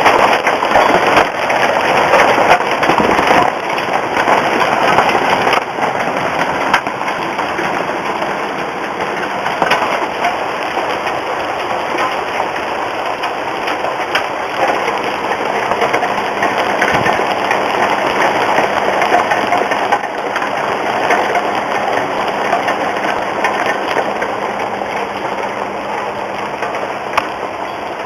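Hail and rain pelting down: a dense, steady hiss studded with sharp ticks of hailstones striking. Heaviest for the first several seconds, then easing slightly.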